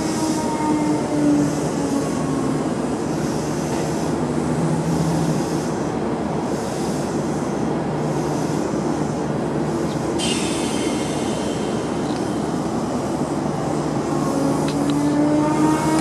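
Odakyu Line electric commuter trains running over a level crossing: a steady rumble of wheels on the rails throughout. A motor whine falls in pitch over the first couple of seconds, and another rises near the end as the next train comes through. A brief high squeal sounds about ten seconds in.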